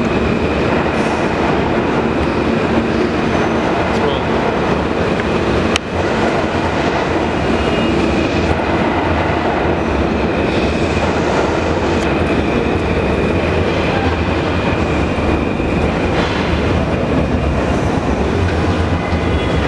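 New York City subway train running on the tracks below, heard up through a street grating: a loud, steady rumble with a thin high whine over it. There is a single sharp click about six seconds in.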